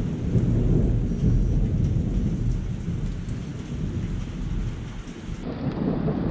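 Thunder rumbling with steady rain falling. The rumble eases a little about five seconds in, then swells again near the end.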